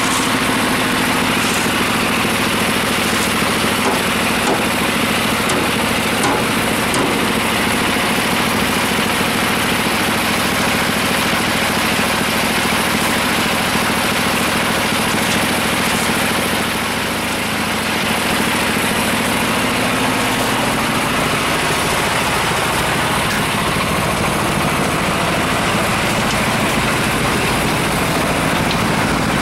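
An engine running steadily at idle, with a slight dip in level about seventeen seconds in.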